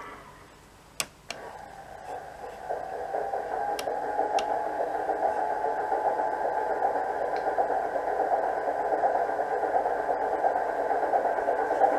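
Sound decoder in an O gauge model Class 25 diesel locomotive playing a Sulzer diesel engine sound through its small speaker. The engine sound builds about two seconds in and then runs steadily, growing slightly louder. Two sharp clicks come about a second in.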